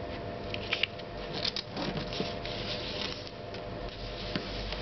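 A square of origami paper being folded and creased by hand: the paper rustling and fingers rubbing along the fold, with a few sharp crackles in the first couple of seconds.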